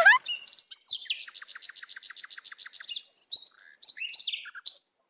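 Birds chirping: a fast run of high chirps, several a second for about two seconds, followed by scattered single chirps and tweets.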